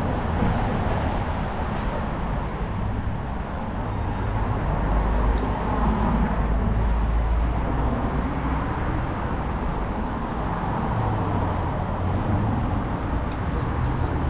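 City street traffic noise: a steady hum of passing cars, with a heavier low rumble of a vehicle going by between about five and eight seconds in.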